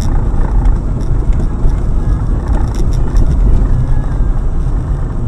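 Car driving, heard through a dashcam's microphone inside the cabin: a loud, steady low rumble of engine and road noise with faint rattles.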